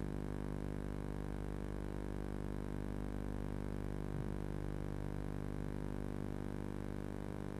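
Steady electrical hum in a nest box camera's audio feed: a constant low buzz made of many evenly spaced tones, unchanging throughout, with no bird calls.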